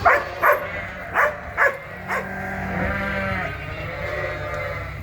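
Sheep and lambs bleating, many long overlapping calls. Four short, sharp, loud sounds come in the first two seconds.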